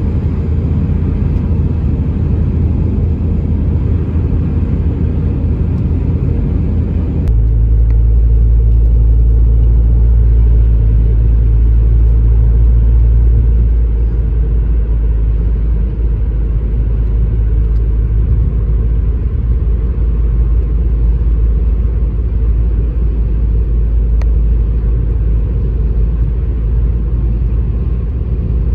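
Steady in-cabin road and engine rumble of a Subaru WRX cruising on the highway. About seven seconds in it changes suddenly to a deeper, heavier rumble with less hiss, and holds steady.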